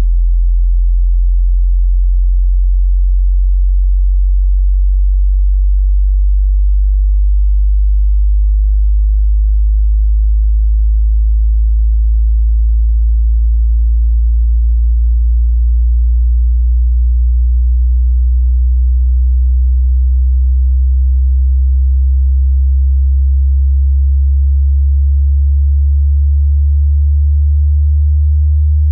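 A pure sine-wave test tone for a hearing test, very low in pitch and steady in loudness, sweeping slowly upward in frequency.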